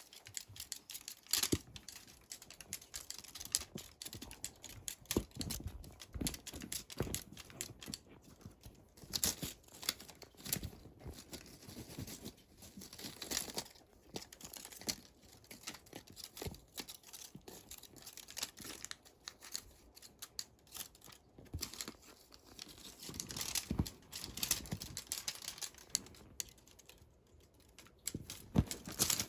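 Irregular rustling and scratching with many sharp little clicks, coming and going in uneven clusters.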